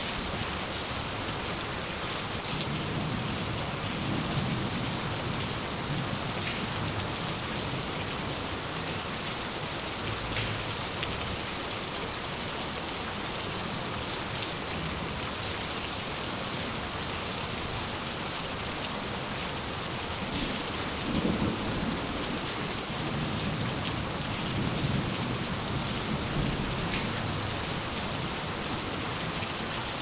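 Steady rain falling, with low rolls of thunder swelling a few seconds in and again past the middle.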